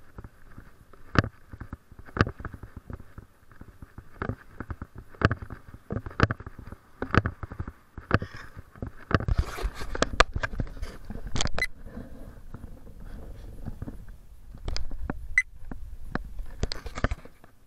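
Footsteps on a concrete sidewalk, about one a second, mixed with rustling and knocking from the camera being jostled as the walker moves. About halfway through a low rumble joins in and the knocks come thicker.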